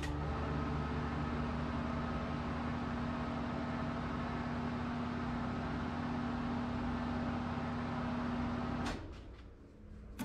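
Sicam Falco tyre changer's electric turntable motor running with a steady hum as the clamped wheel rim turns. It stops about nine seconds in.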